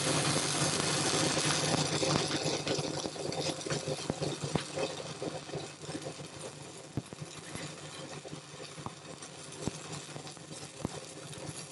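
Gas-shielded flux-cored wire welding arc crackling and sizzling, with sharp pops of spatter; it grows quieter and more broken about three seconds in.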